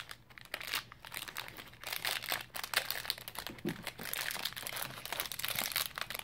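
A silvery snack-bar wrapper crinkling and tearing as it is pulled open by hand, a stubborn package that takes some wrestling. The crackling is dense throughout and grows busier about two seconds in.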